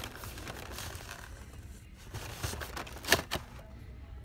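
Hot Wheels blister cards rattling and scraping against each other and the cardboard case as they are flipped through by hand, with a few sharper plastic clacks in the second half.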